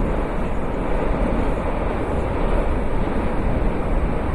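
Continuous eruption noise of the Cumbre Vieja volcano: a steady, dense rumble with no breaks.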